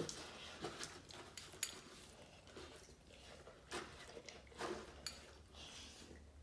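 A pit bull eating wet dog food: irregular wet chewing and smacking with short sharp clicks.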